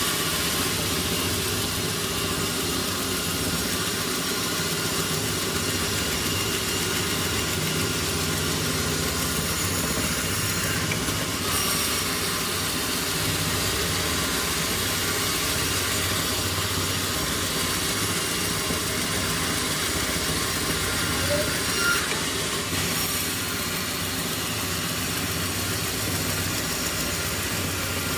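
Sawmill machinery running steadily: an engine hum with a high, hissing noise above it, without a clear cut into wood.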